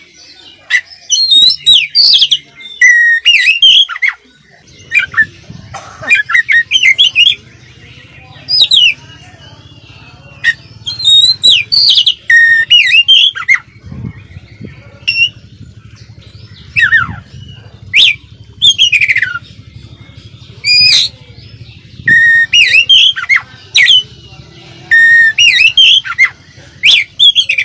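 Oriental magpie-robin (kacer) in full song: loud bursts of fast, varied whistled phrases with quick falling sweeps and chattering notes, separated by short pauses. The song is packed with mimicked phrases of other birds.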